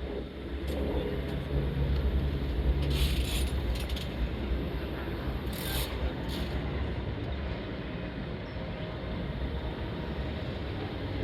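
Steady low mechanical rumble, with two short bright hisses about three and six seconds in.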